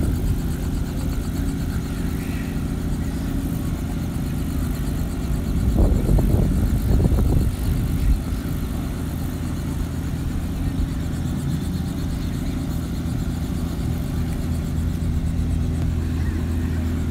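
Steady low mechanical hum, with a louder, rougher rush of noise lasting about two seconds around six seconds in.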